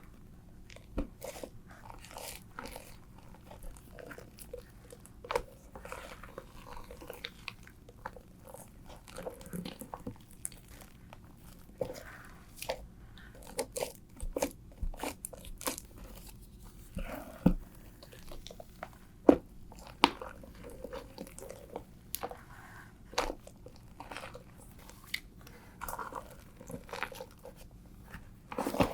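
Fluffy shaving-foam slime being squeezed and pressed by hand, giving irregular crackling clicks and pops, a few of them sharper and louder around the middle.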